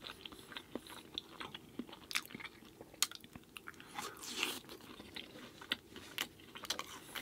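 A person chewing food close to the microphone, with many irregular sharp, wet mouth clicks and a longer noisy stretch about four seconds in.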